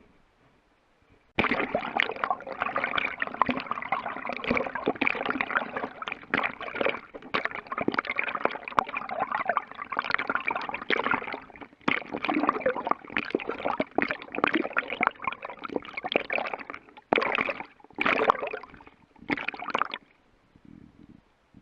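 Water sloshing and gurgling, starting abruptly about a second in and ending in three short bursts.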